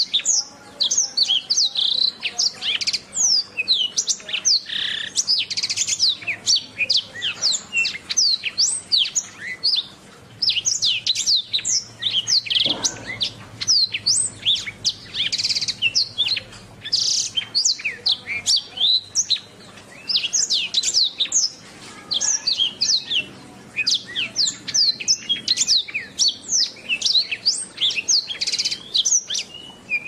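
Domestic canary singing a long, unbroken song of rapid high chirps and trills, with only a few brief pauses.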